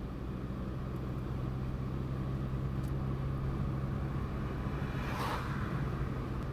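A car engine runs with a steady low drone under road noise. About five seconds in, an oncoming car passes with a brief swell of tyre and engine noise that fades quickly.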